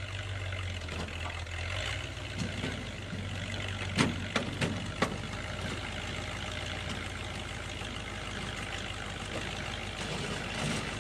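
Heavy vehicle engine running steadily, with four sharp knocks in quick succession about four seconds in.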